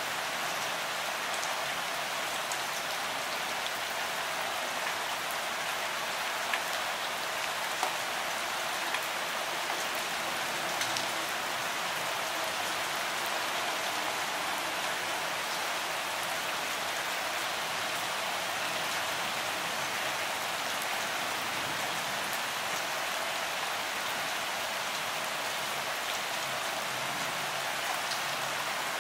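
Steady rain falling, an even hiss with a few single louder drop ticks in the first half.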